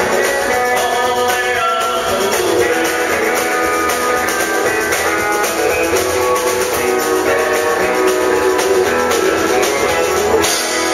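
Live country-western band playing, with strummed acoustic guitars and a fiddle.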